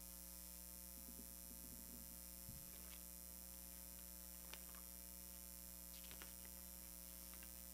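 Near silence: a steady electrical hum, with a few faint ticks.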